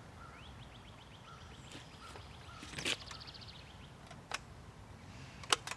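A bird trilling in the background, a quick run of short rising notes lasting about three seconds, with a few sharp clicks from hands working the chainsaw's handle and throttle controls.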